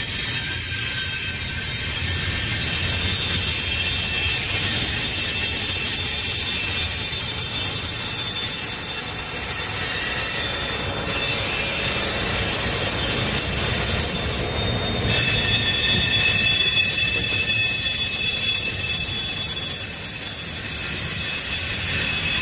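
Double-stack intermodal freight train's container well cars rolling past with a low rumble, the wheels squealing in several steady high-pitched tones.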